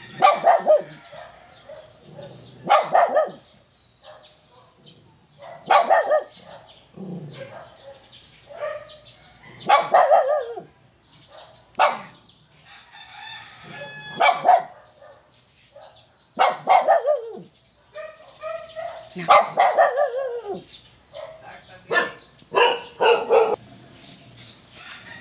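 A dog barking over and over, about one bark every two to three seconds, some drawn out into a howl-like bark that falls in pitch.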